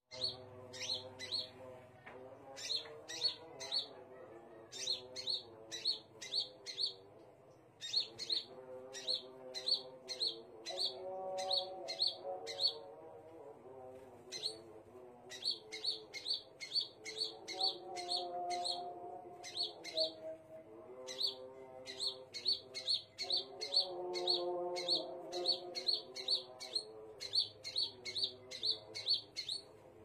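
Scarlet minivet (sepah raja) calling: short, sharp high chirps in quick runs of three to six, repeated over and over with brief gaps.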